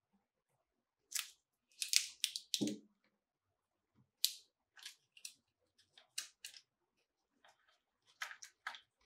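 Crisp crinkles and rustles of a smartphone's plastic protective film and paper packaging being handled, in short bursts, with a soft knock about two and a half seconds in as the phone is laid on the table.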